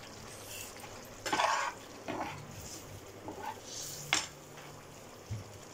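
Metal slotted spoon stirring a pan of chicken curry gravy: a few short scrapes against the pan, the longest about a second in, and a sharp clink of the spoon on the pan about four seconds in.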